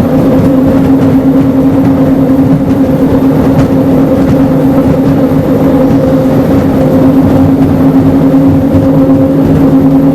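The twin Iveco diesel engines of an XRS 48 powerboat run at a steady high speed. They give a loud, even drone over a rushing hiss.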